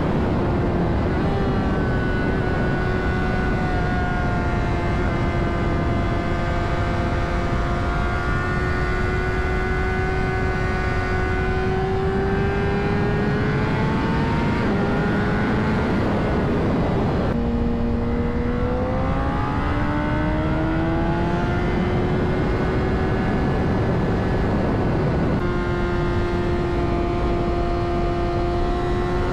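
2009 Honda CBR600RR's inline-four engine running at speed under a steady low wind rush. Its pitch climbs slowly, drops sharply about 17 seconds in as at a gear change, then climbs again, with another sudden change near the end.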